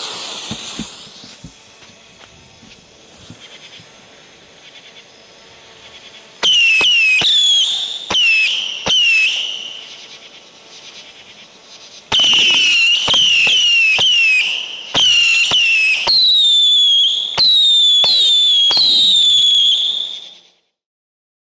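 A Boomer Fireworks Silvery-Hawk 61-shot cake firing Saturn missiles. The fuse catches with a burst of hiss, then from about six seconds in the shots come in rapid volleys, each a sharp pop followed by a high whistle that dips in pitch. There is a short volley, a pause, then a longer, denser run that cuts off suddenly near the end.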